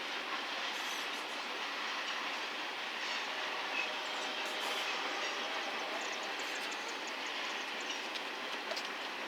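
Freight train cars rolling past: a steady rumble of steel wheels on rail, with a few light clacks from the wheels.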